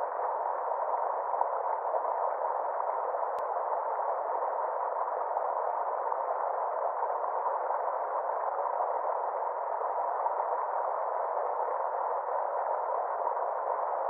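Small stream running over rocks: a steady, even rush of water with a dull, muffled tone.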